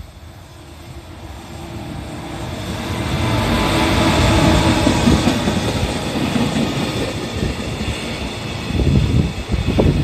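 EF210 electric locomotive hauling a container freight train approaching and passing close by: the running noise builds over the first few seconds to its loudest about four to five seconds in, then container wagons roll past, with wheels clacking over rail joints near the end.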